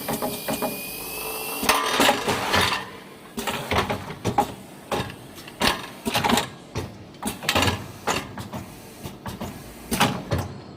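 Automatic pouch packing machine running: a string of sharp mechanical clacks and knocks, about one or two a second, with a faint rising whine in the first second and a half.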